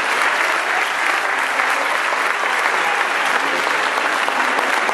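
Large crowd applauding steadily, many hands clapping together without a break.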